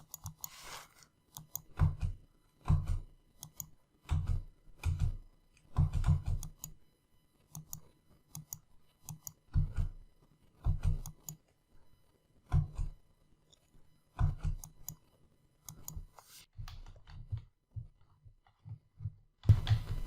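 Computer keyboard being typed on, keys tapping and clicking in short irregular clusters, each with a dull thump, roughly one cluster a second.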